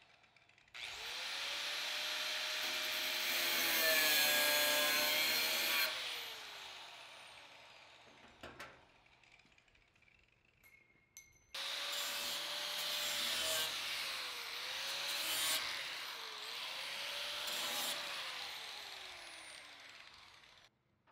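DeWalt angle grinder grinding down a steel filler tube on a gas tank, in two long runs; the motor's pitch dips as the disc bites, and it winds down after each run.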